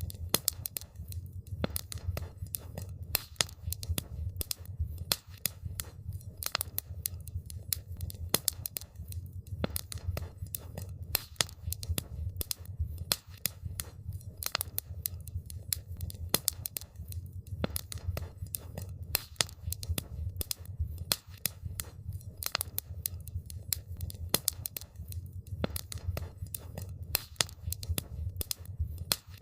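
Wood campfire crackling, with dense irregular sharp pops over a steady low rumble.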